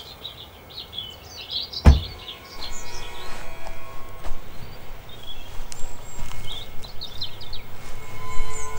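Birds chirping in pine woodland. A single loud thump sounds about two seconds in, then footsteps crunch steadily over the forest floor.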